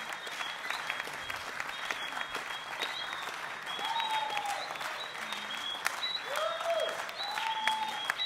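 Audience clapping, dense and steady, with a few cheers rising and falling from about four seconds in.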